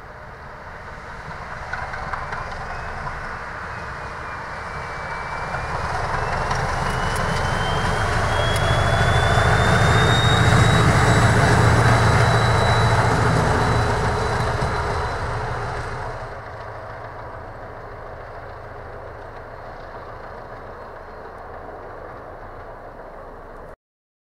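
Diesel locomotive hauling a double-deck passenger coach past at speed. Its engine drone builds as it approaches, is loudest about halfway, with a high whine rising in pitch, then fades as it goes by. The sound cuts off abruptly near the end.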